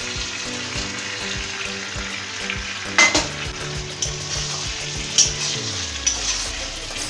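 Meat and onion masala sizzling in a kadai as water is added and it is stirred with a spatula. Utensils clack sharply against the pan twice, about three and five seconds in.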